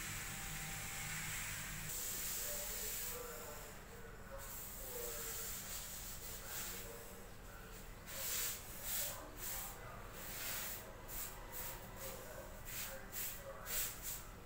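A steady hiss for the first few seconds, then repeated short rubbing strokes by hand on a short white PVC pipe fitting, about two or three a second.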